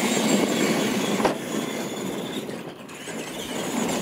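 Electric R/C monster trucks racing flat out on dirt: high-pitched motor and gear whine over tyres scrabbling on loose dirt and gravel, with a sharp knock about a second and a quarter in.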